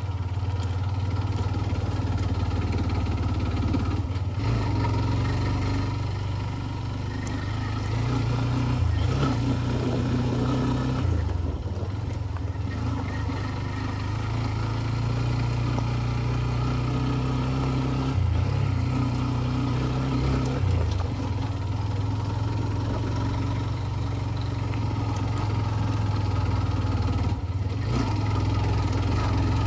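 TVS Ntorq 125 scooter's single-cylinder four-stroke engine running under way on a ride, its drone rising and falling with throttle, with wind and road noise.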